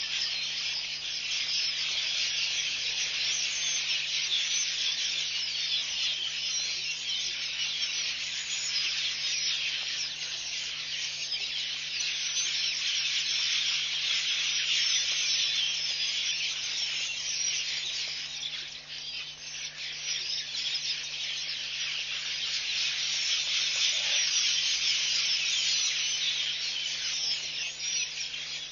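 Dense chorus of insects at a waterhole: a continuous high buzzing hiss that swells and eases a little, over a faint steady low hum.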